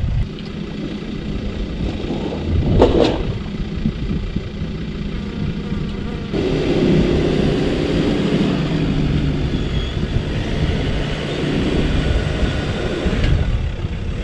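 Pickup truck engine running while it backs a boat trailer into the lake and drives it out again. It gets louder and steadier about six seconds in, as the truck pulls away. A brief sharp sound stands out about three seconds in.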